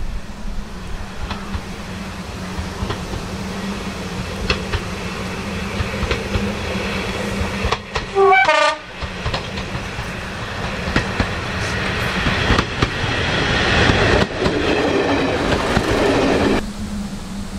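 Class 121 'Bubble Car' diesel railcar approaching and passing close by. It gives a short two-tone horn blast about eight seconds in, then its running grows louder as it nears, with wheels clicking over rail joints, and the sound cuts off suddenly near the end.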